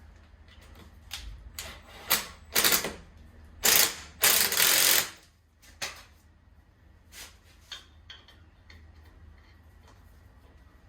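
Ratchet wrench working a wheel's lug nuts during a tire change: a few short runs of fast clicking, the loudest and longest near the middle, then a handful of single clicks.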